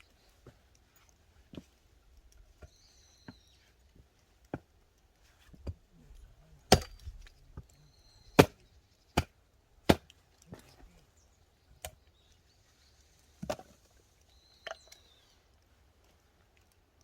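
Axe splitting firewood: a string of sharp chopping strikes into wood at an uneven pace, roughly one a second, with the heaviest blows in the middle.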